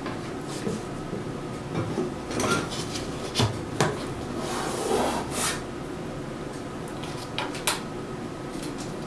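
Scattered light clinks and knocks, metal and wood being handled, as a plywood zero clearance insert with a bent metal hold-down bracket is set into the throat of a table saw.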